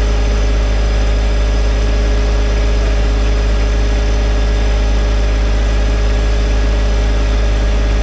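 John Deere 1025R compact tractor's three-cylinder diesel engine running steadily at idle, with a constant low hum.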